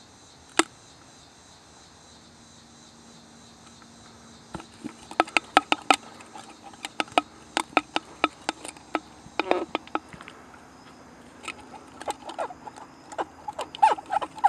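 A steady chorus of insects chirring in the background. From about four and a half seconds in, it is broken by many irregular sharp clicks and ticks, the loudest sounds here.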